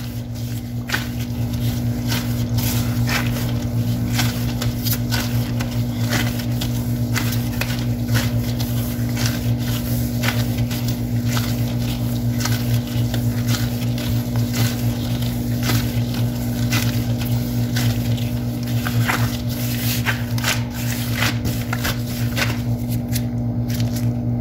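Gloved hands kneading yeast dough on a countertop: irregular soft slaps and clicks of dough and gloves against the counter, many times over. A steady low hum runs underneath and is the loudest sound throughout.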